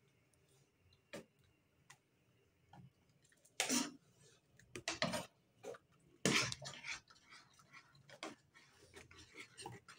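Handling noise: scattered faint clicks, then a few short, louder clattering knocks and rustles a few seconds in as sauce bottles and containers are picked up and moved on a counter.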